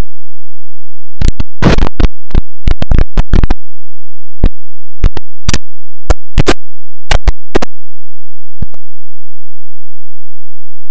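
Heavily distorted, clipped soundtrack of an earrape-style video effect: harsh crackling clicks and pops at irregular intervals, packed closely for a couple of seconds starting about a second in, then spaced out, stopping a couple of seconds before the end.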